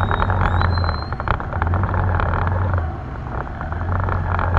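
Motorbike engine running as a steady low hum, muffled through a waterproof action-camera case, under a dense rapid crackle of rain and wind striking the case.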